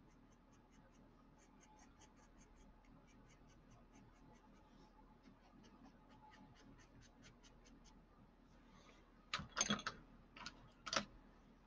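Pencil tip on paper making quick short shading strokes: faint, quick ticking, several strokes a second. About nine seconds in, the strokes stop and a few louder scuffs and rustles follow as the hand and the loose cover sheet of paper move.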